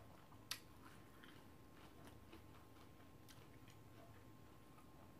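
Near silence: room tone with a few faint scattered clicks, one slightly louder about half a second in.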